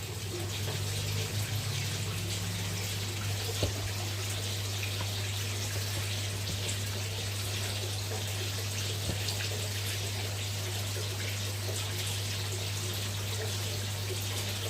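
Steady running water with a constant low hum underneath, and a faint knock a little under four seconds in.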